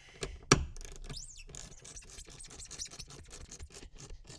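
A nut on the cubby mounting hardware being tightened with a hand tool: one sharp knock about half a second in, then a quick run of small clicks, several a second, that thin out near the end.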